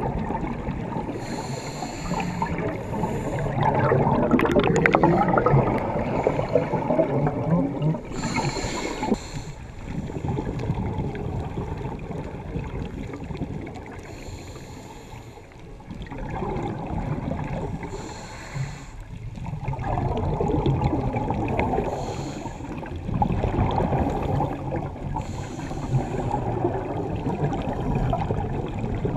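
Scuba diver breathing through a regulator underwater: a short hiss on each inhale, then a longer rushing, bubbling rumble of exhaled air, repeating every four to six seconds.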